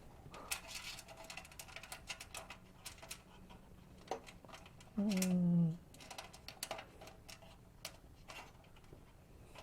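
Faint, irregular small clicks and ticks of a screw and washer being handled and threaded by hand into the holes of a computer case's metal frame. A brief voice hum comes about halfway through.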